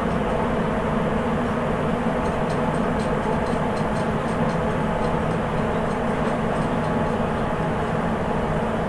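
Sapporo Municipal Subway 8000-series train running at speed through the tunnel between stations, heard inside the car: the steady rumble of its rubber tyres on the track, with a few faint clicks a few seconds in.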